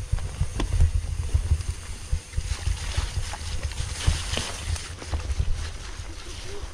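Wind buffeting the microphone of a camera riding on a mountain bike down a rough trail, with scattered sharp knocks and rattles from the bike over the ground.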